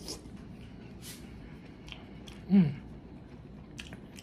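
Mouth sounds of eating a green-lipped mussel off the shell: faint wet smacks and chewing clicks. About two and a half seconds in comes a short hummed 'mm' that falls in pitch.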